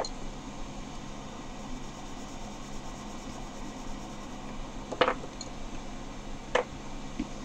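Quiet room tone with a steady low electrical hum, broken by two short clicks about five seconds in and again a second and a half later.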